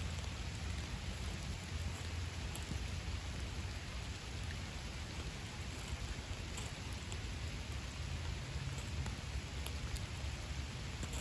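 Steady rain falling, with faint scattered drop ticks and a low steady rumble underneath.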